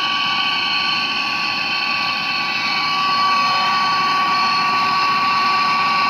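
Handheld gas torch flame hissing steadily with a thin whistling tone, brazing a copper refrigerator pipe joint; it gets slightly louder about halfway through.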